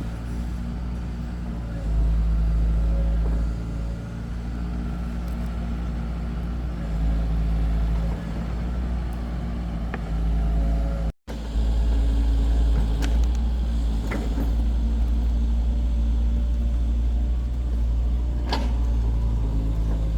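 Excavator's diesel engine running steadily, with a few sharp knocks in the second half, and one brief break in the sound just over halfway.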